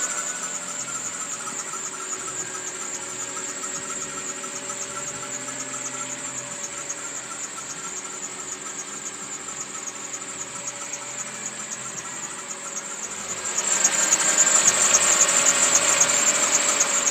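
Mitsubishi Lancer X engine running just after start-up, with a high-pitched squeak chirping over it: the start-up squeak the owner is trying to trace. About thirteen seconds in, the squeal and engine sound grow much louder for a few seconds, then drop back.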